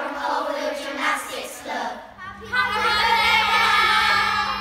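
Children's voices singing, louder from about two seconds in, over a steady low hum.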